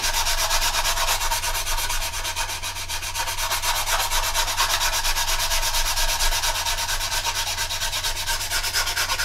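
Medium sanding file scraping rapidly back and forth over dried filler on a plastic model aircraft's fuselage seam, in quick, even strokes, knocking the filler down toward the plastic.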